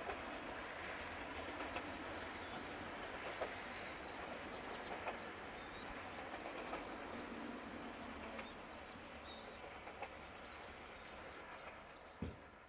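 Steam train of the Moka Railway heard faintly from a distance, a steady low rumble of running, with small birds chirping now and then and a sharp click near the end before it fades out.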